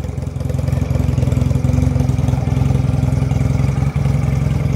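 Benelli Patagonian Eagle 250 cc V-twin engine idling steadily through its exhaust, which has been split into separate left and right pipes.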